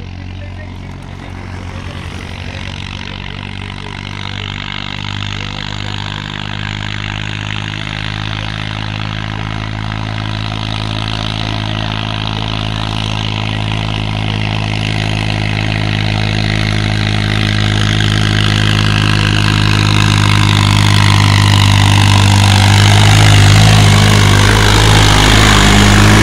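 New Holland 3630 tractor's diesel engine pulling two trolleys loaded with sugarcane, growing steadily louder as it approaches and passes close by near the end, its note falling as it goes past.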